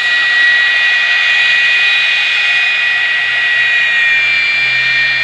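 GE J79 turbojet engine running, heard from about 200 yards: a steady loud rushing roar with a high whine, which sags slightly in pitch about four seconds in.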